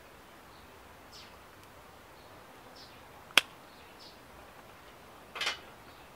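Bonsai scissors snipping through cypress roots. There is one sharp snip about three and a half seconds in and a second, longer cut near the end, with faint small ticks between.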